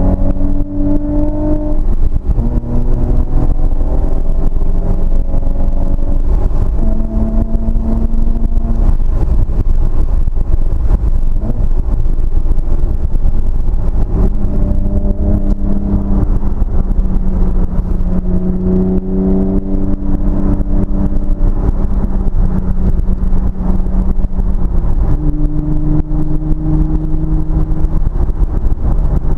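Car engine running while driving; its note holds and then steps up or down in pitch as the revs change, over a loud, constant low rumble.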